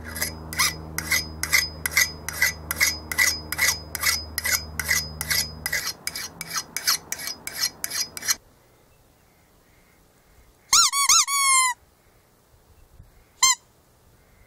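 A hand file sharpening the steel edge of a 1943 Estwing hatchet: even rasping strokes, about two and a half a second, each with a ringing metallic note, stopping about eight seconds in. A few seconds later a squeezed rubber chicken toy gives a wavering squawk of about a second, then one short squeak.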